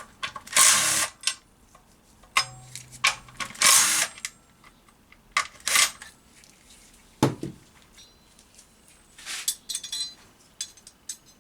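Socket tools working the bracket bolts off a manual gearbox case: several short bursts of tool noise spread a second or two apart, then a quick run of small metal clicks near the end.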